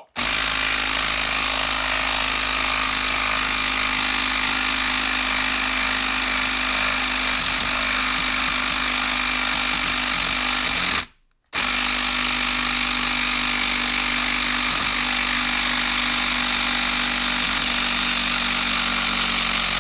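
Makita 12-volt brushed impact driver hammering steadily as it backs a long screw out of a wooden log. It stops briefly about eleven seconds in, then starts hammering again.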